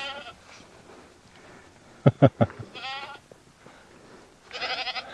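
Young goats bleating three times, each bleat short and quavering. Three sharp low thumps come in quick succession about two seconds in.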